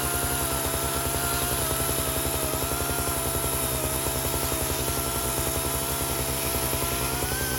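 Echo CS-590 two-stroke chainsaw running steadily at full throttle in a chainsaw mill, crosscutting a large red oak log, with a whine that wavers slightly.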